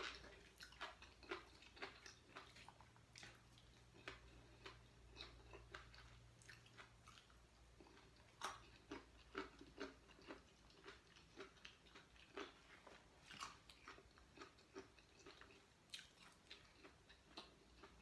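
Faint, close-up chewing and biting: a person eating sticky rice and raw vegetables such as radish, with many small irregular crunches and wet mouth clicks.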